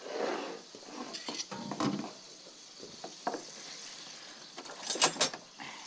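Meat browning in butter in a pot with a faint steady sizzle, while a utensil scrapes and knocks against the pot a few times. Two sharp clinks come close together near the end.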